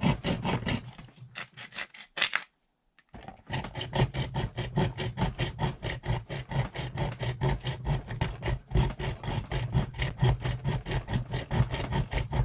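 Saw blade of a Ganzo G302-B multitool cutting through PVC pipe in quick back-and-forth strokes, about four a second. There is a brief stop about two and a half seconds in.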